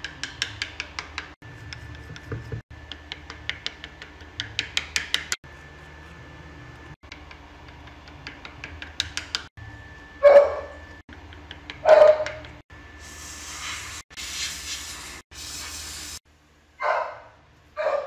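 A dog barking: single loud barks about ten and twelve seconds in, then two more near the end. In the first half there are runs of quick, light clicks, and just before the last barks there are three short bursts of hiss.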